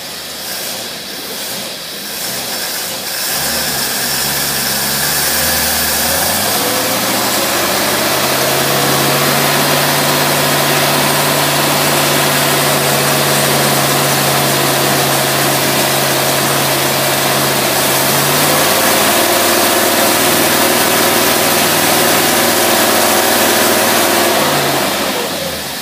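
Engine running on a Rochester marine carburetor under test, kept running by holding the choke: it revs up over several seconds, holds at a fast, steady speed, eases back partway, and drops back toward idle near the end.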